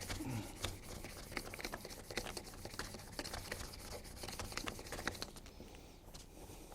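Fine sandpaper rubbed by hand over a plastic lamp lens: quick, short scratchy strokes sanding out scratches, easing off about five seconds in.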